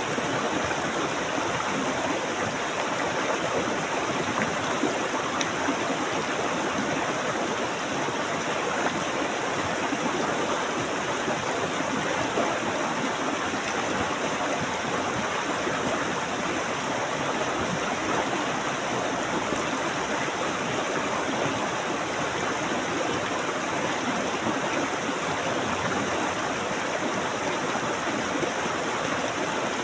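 Natural flowing water running steadily, an even unbroken rush with no changes.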